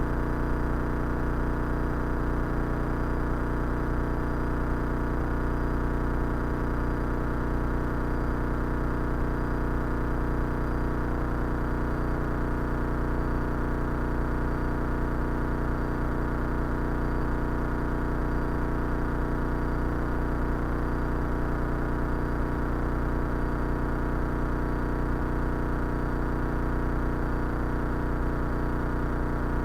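Cessna 172 Skyhawk's piston engine and propeller droning steadily in flight, an even, unchanging hum heard in the cockpit.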